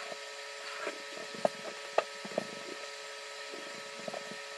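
Quiet room tone with a steady electrical hum and a handful of faint, short clicks and taps from a paintbrush and a hand-held rock being worked on.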